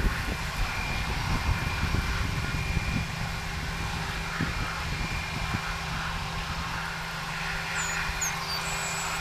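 Airbus A319 jet engines running at low power as the airliner taxis after landing, a steady whine over a rushing hum, with gusty wind rumbling on the microphone.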